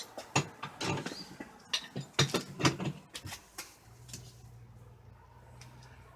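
Wrench tightening threaded gas pipe fittings: a run of sharp metallic clicks and scrapes, then a faint low steady hum from about four seconds in.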